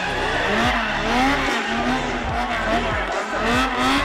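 Car engine revving hard and falling back over and over while the car drifts sideways, with tyres squealing and scrubbing on the asphalt.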